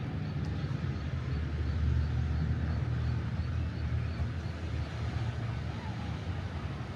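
Steady low outdoor rumble with a fainter hiss above it, with no distinct events.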